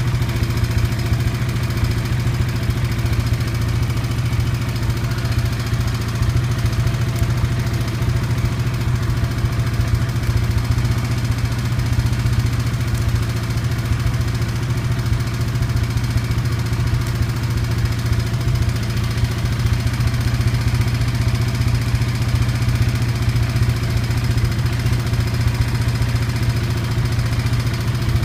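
1996 Honda FourTrax 300 ATV's single-cylinder four-stroke engine idling steadily, with no revving.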